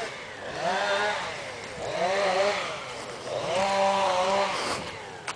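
Chainsaw revving up and down three times, its pitch rising and falling with each rev.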